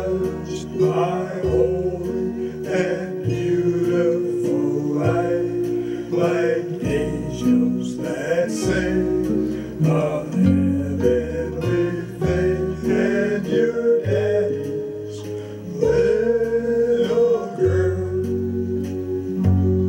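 A man singing a ballad while accompanying himself on an archtop acoustic guitar with a capo, playing bass notes under strummed chords.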